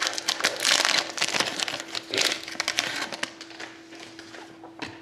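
Foil wrapper of a Panini Select hockey card pack crinkling and tearing as it is opened by hand, dense and crackly for about three seconds. It then dies down to a few light clicks.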